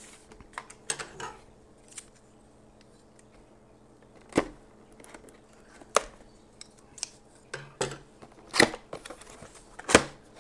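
Cardboard box being handled and its tape slit with a box cutter: scattered sharp taps and clicks a second or two apart, the loudest two near the end.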